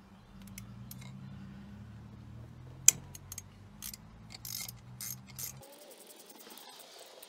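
Irregular clicks of a ratchet socket wrench loosening a small sensor bolt on an engine's fuel rail, the loudest a little under three seconds in, over a steady low hum that cuts off about five and a half seconds in.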